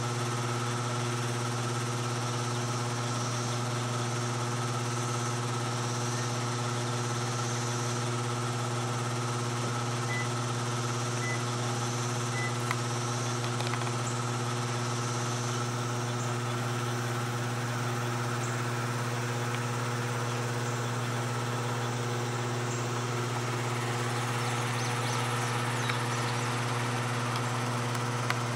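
Steady low mechanical hum at one unchanging pitch, like machinery idling, with a few faint clicks.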